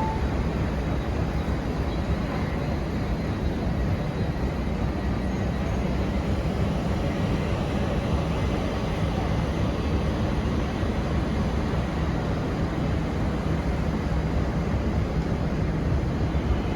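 Steady rumble of a passenger train running at a station, with a faint low hum under it.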